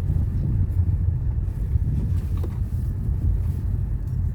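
Car driving, a steady low rumble of engine and tyres.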